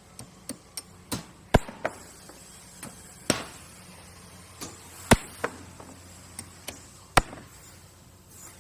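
Construction work: a series of sharp knocks and bangs on hard material, irregular but with the loudest blows coming about every two seconds, over a low steady hum.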